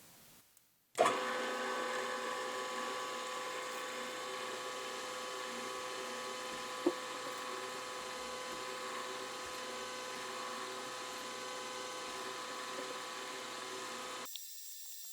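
Machine spindle running at a steady speed while drilling a small relief hole through a small steel part. The whine starts suddenly about a second in and cuts off abruptly near the end. A single brief click comes partway through.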